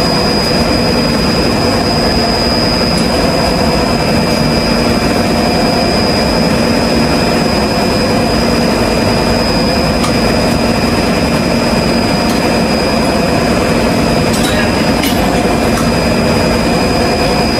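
Loud, steady drone of industrial refrigeration machinery running, a low hum with a thin high whine above it and no change in pace.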